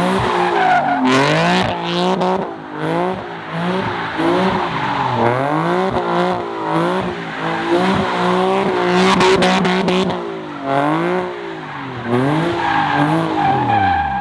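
Nissan 370Z drifting in donuts: its engine revving up and down about once a second while the rear tyres squeal and spin on the asphalt.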